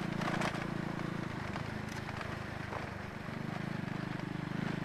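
Motorcycle engine running at steady low revs on a gravel road, with a few crackles of loose stones under the tyres; the engine note dips briefly about three seconds in.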